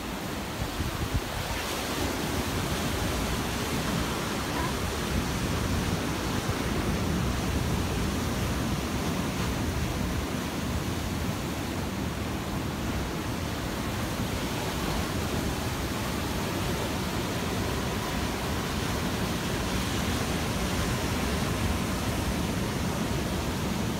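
Steady rush of ocean surf breaking and washing over the rocks.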